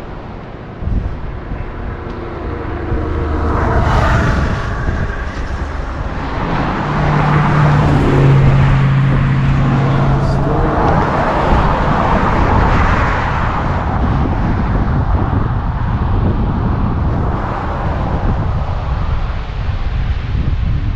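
Road traffic passing on a highway, cars going by one after another. The loudest passes about eight seconds in, its engine hum dropping in pitch as it goes by.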